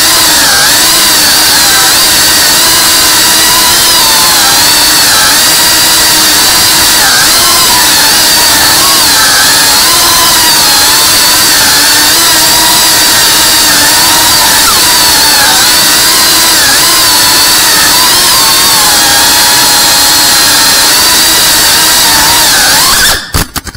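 FPV quadcopter's brushless motors and propellers whining, several pitches wavering up and down together as the throttle changes, heard close up from the drone itself. The sound cuts out sharply for a moment near the end.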